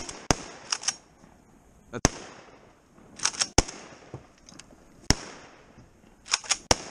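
Several shotgun shots fired a second or two apart, the first the loudest, with sharp clicks in between.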